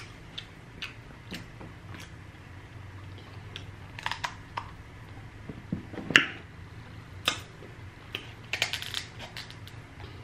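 Close-up clicks, cracks and wet squishes of a cooked king crab leg being handled, its shell worked open and the meat pulled out. There is a louder one about six seconds in and a quick flurry near nine seconds.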